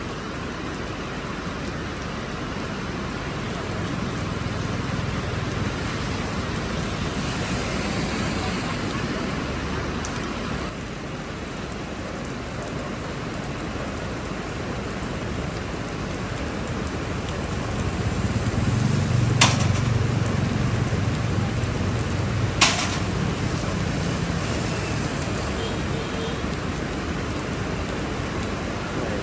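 Heavy rain falling as a steady hiss, with a low rumble swelling for a few seconds past the middle. Two sharp clicks about three seconds apart cut through it about two thirds of the way in.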